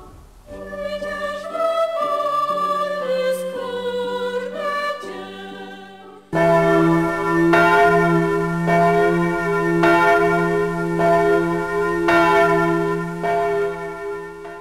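Slow music of long held notes, a melody moving over a sustained low note. About six seconds in it turns suddenly louder into full held chords with a stroke about once a second, and it fades out at the end.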